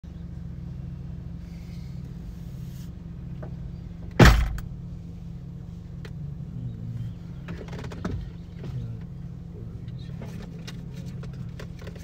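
Steady low motor hum. One sharp, loud knock comes about four seconds in, with a few lighter clicks and rattles later.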